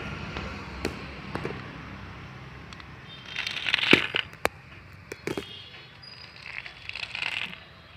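Scattered sharp clicks and knocks with two short bursts of scraping or rustling, over a faint low rumble that fades away in the first few seconds.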